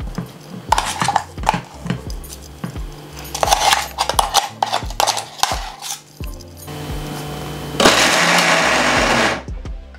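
A metal spoon scrapes and clinks inside a stainless-steel mixer-grinder jar. Then the electric mixer grinder runs for a short pulse of a few seconds, coarsely grinding soaked chana dal, and stops suddenly near the end. The pulse is kept short so the dal stays coarse rather than becoming a paste.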